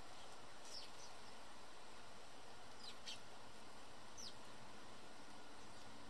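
House sparrows chirping around a seed feeder: a few short, high chirps, each falling in pitch, scattered through, over a steady background hiss.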